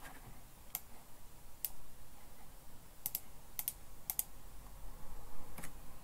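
Scattered clicks of a computer keyboard and mouse during document editing: about nine short clicks, several in quick pairs around the middle, with one more near the end.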